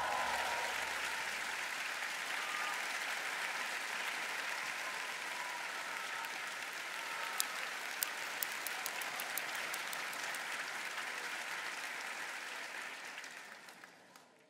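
Studio audience applauding steadily, the applause dying away near the end.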